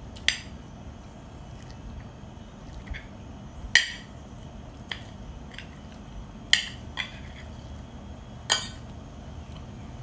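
A metal spoon clinking against a plate while eating: four sharp clinks a few seconds apart, with a few fainter taps between them.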